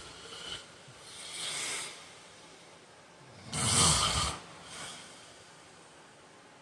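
A heavy-set man snoring in his sleep. Soft airy breaths come first, then about three and a half seconds in one loud snore of under a second with a low vibration, followed by a faint breath out.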